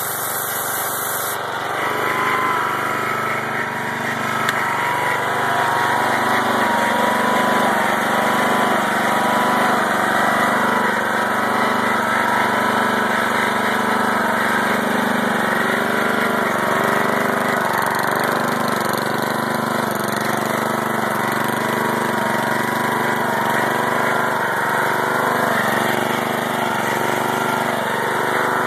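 Pressure washer's 16 hp Briggs & Stratton engine running steadily, driving the pump. A high hiss of water spray from the wand is heard at first and stops about a second and a half in.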